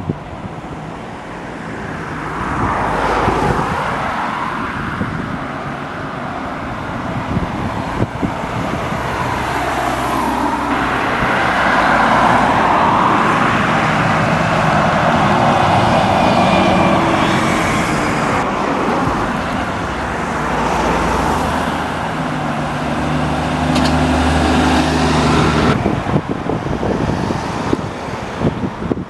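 Diesel single-deck buses and road traffic passing on town streets, engine noise swelling and fading as vehicles go by. A steady engine hum, like a bus waiting or pulling away, is heard in the last few seconds. The sound changes abruptly about ten seconds in and again near the end.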